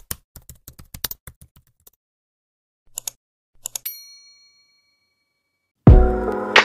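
Subscribe-animation sound effects: a quick run of keyboard typing clicks, then two mouse clicks about three seconds in and a notification-bell ding that rings out briefly. After a short pause, music starts loudly with a low boom near the end.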